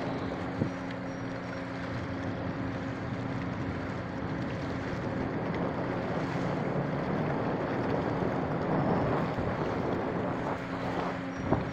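A riverboat's engine running steadily with a low hum, under a rushing wash of wind on the microphone. A couple of sharp knocks near the end.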